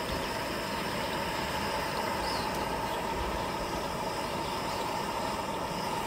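Steady hiss and low rumble of battered bass frying in a pan of oil over a gas burner, the oil just starting to steam.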